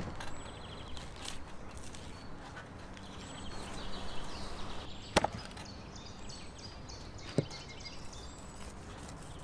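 Large kitchen knife cutting through a whole salmon on a plastic-covered table: scraping and rustling as the blade works through, and two sharp knocks as it chops through, the louder about five seconds in and another about two seconds later.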